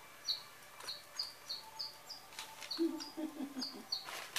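DigiBird electronic toy bird chirping in reply to its whistle: a quick run of short, high chirps, about two or three a second.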